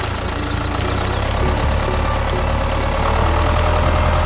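Small engine of a miniature DIY tractor running steadily, a little louder in the second half.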